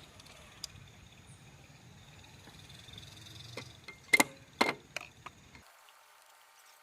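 A few sharp metallic clinks and knocks, clustered about four seconds in, of tools and metal parts being handled while a sliding gate motor is taken apart.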